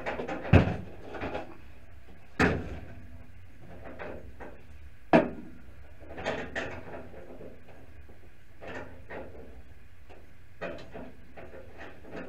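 Clunks and clicks of hands and tools working on the underside of a car's dashboard: three sharper knocks, about half a second, two and a half seconds and five seconds in, with lighter clicks and rattles between.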